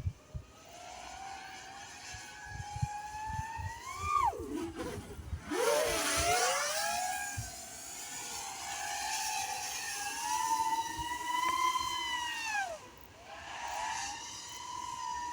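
An iFlight Nazgul Eco 5-inch FPV quadcopter's brushless motors and propellers whine, the pitch rising and falling with the throttle. The whine climbs to a peak about four seconds in and drops steeply as the throttle is cut. About two seconds later it surges back with a loud rush of propeller noise. It falls off again near the end and then climbs.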